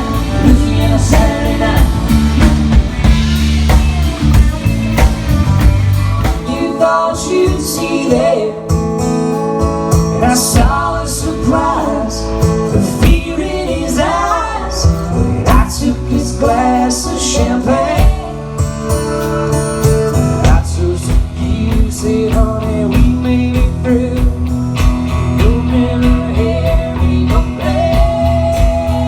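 A country-rock song with guitar over a steady drum beat.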